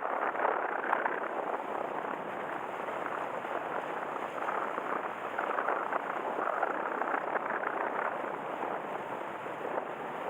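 Strong wind buffeting the microphone: a rough rushing noise that rises and falls in gusts.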